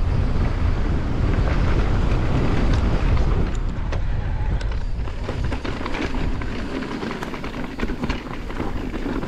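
Wind buffeting the microphone and mountain-bike tyres rolling over rutted dirt, with frequent sharp clicks and rattles from the bike over rough ground. The heavy wind rumble eases about three and a half seconds in.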